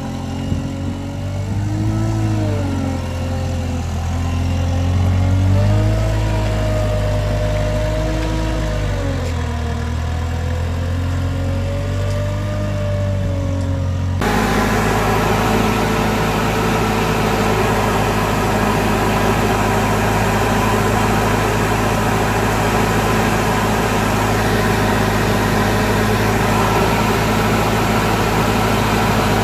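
Mathieu MC110 compact street sweeper running, its engine pitch rising and falling as it manoeuvres. About halfway through the sound cuts to a steady drone with a hiss, the sweeper running in place heard up close at its front brushes and suction nozzle.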